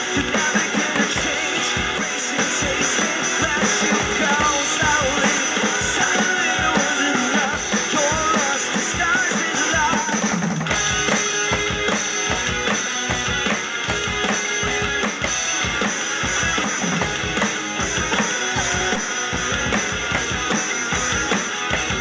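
Rock song with electric guitar and a steady run of drum hits, played along on a tabletop electronic drum pad kit. The music changes texture about halfway through.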